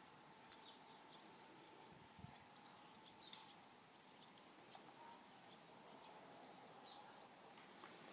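Near silence: a faint, steady high insect buzz with a few faint bird chirps.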